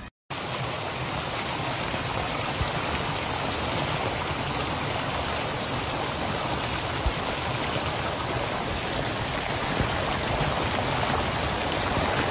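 Muddy floodwater rushing and churning in a fast torrent, a steady, unbroken rush of water.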